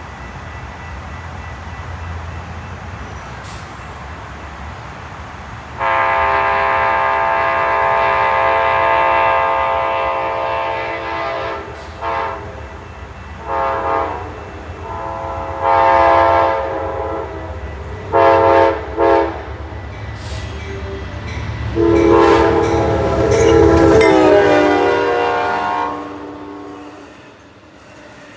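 Locomotive multi-chime air horn sounding a series of blasts: a long one about six seconds in, several short ones, then a long one near the end whose pitch drops as the train passes. A low rumble from the approaching train runs underneath.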